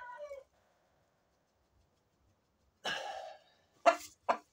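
A rooster's crow ends just after the start. After a pause of about two seconds comes a short harsh call, then two quick clucks near the end.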